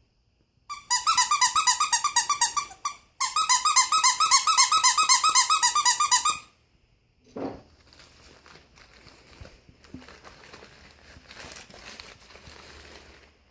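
Squeaky dog toy squeezed rapidly in two runs of quick, even squeaks, about ten a second, the second run about three seconds long, followed by faint rustling.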